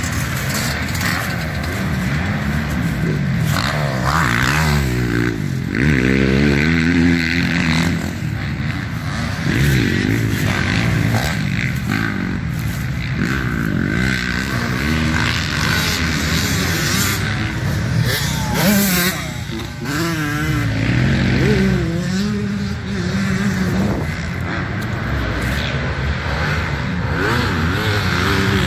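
Dirt bike engines revving up and down over and over, their pitch rising and falling as the bikes go around the track and over the jumps.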